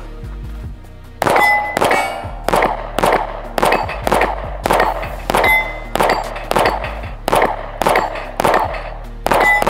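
Staccato XC pistol fired at a steady rhythm, about one shot every three-quarters of a second starting about a second in, each shot followed by the clang and ring of a steel target being hit. Background music runs underneath.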